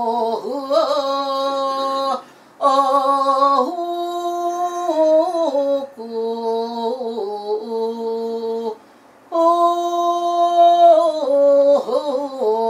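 A solo voice singing a slow melody of long held notes that step from pitch to pitch, with breaks for breath about two and nine seconds in.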